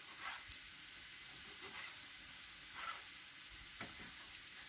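Small kitchen knife slicing a tomato on a plastic cutting board: about five short, soft cuts spread across a few seconds, over a steady faint hiss.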